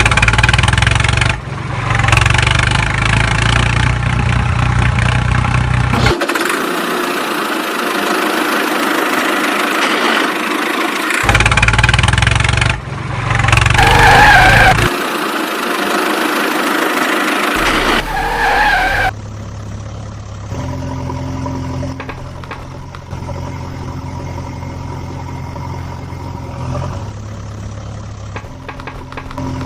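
Heavy-vehicle engine running and idling, in several segments that cut in and out abruptly, with brief wavering higher tones around the middle; it settles to a quieter steady idle over the last third.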